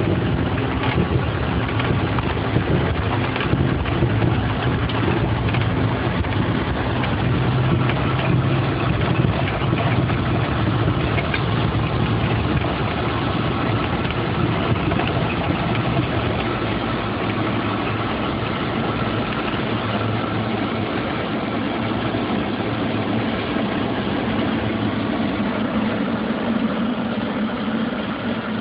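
Steady jet cockpit noise of an Embraer ERJ145 on takeoff: its rear-mounted Rolls-Royce AE 3007 turbofans and airflow making a continuous rush with a low rumble that eases about halfway through.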